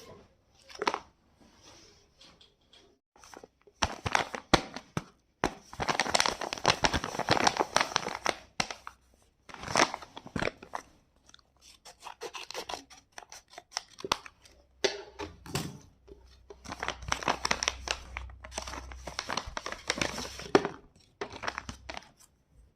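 Blind bag packaging being torn open and crinkled by hand, in stretches of rustling and tearing with sharp crackles, pausing now and then.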